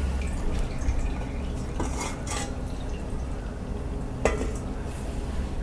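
Stainless steel idli-cooker steamer plate knocking and clinking against the metal pot as it is handled and lifted out, a few light metallic knocks about two seconds in and another sharper one later, over a low steady hum.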